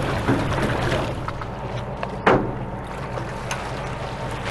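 CB90 assault craft's engines running at a low, steady idle, with water noise and one sharp knock about two seconds in.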